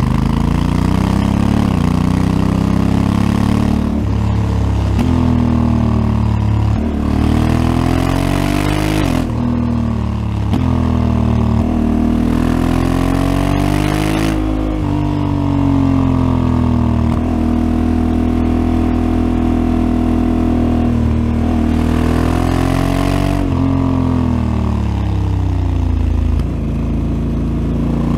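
Honda Africa Twin CRF1100L's parallel-twin engine through its stock exhaust, heard onboard while riding: it revs up and shifts several times, the pitch climbing and dropping with each gear change. It then holds a steady pitch for a few seconds, falls as the bike slows, and picks up again near the end.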